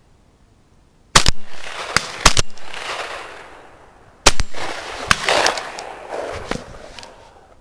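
Two shotgun shots about three seconds apart, fired at a flying pheasant, each followed by a long fading echo. Several sharp clicks and knocks come between and after the shots.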